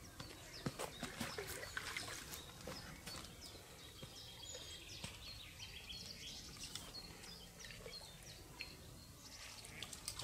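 Faint splashing and trickling water as a hooked carp is brought to a landing net at the pond edge, with small birds chirping.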